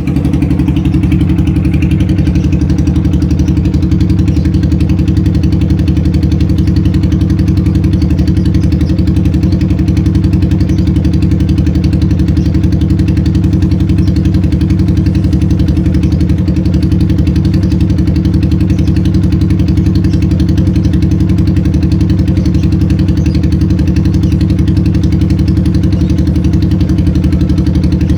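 Motorcycle engine idling steadily and loudly through a salvaged, scavenged exhaust, at an even pitch with no revving.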